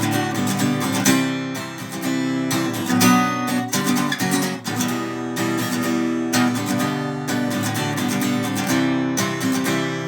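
Acoustic guitar strummed in a steady rhythm, its chords changing, with no singing: an instrumental passage of the song.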